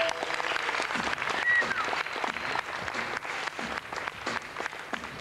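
Audience applauding, loudest about a second and a half in, then easing off a little.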